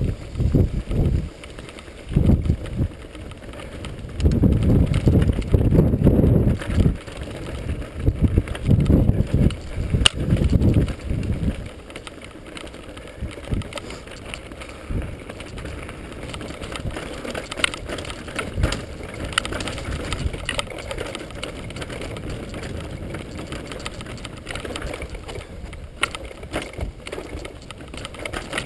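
Mountain bike rolling fast over rocky singletrack: the bike rattles and clicks over the stones. For the first dozen seconds wind buffets the microphone in loud gusts, then it settles to a steadier, quieter rattle with many small clicks.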